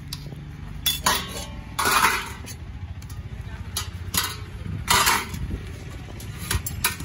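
Steel serving spoons scraping and clinking against stainless-steel rice pots as rice is scooped out and served, several separate short scrapes and clinks over a steady low background rumble.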